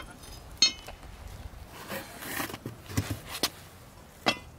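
Metal Christmas tree stand parts clinking and knocking as its legs and bolts are handled and fitted together: several separate sharp clinks, two of them ringing briefly, about a second in and near the end.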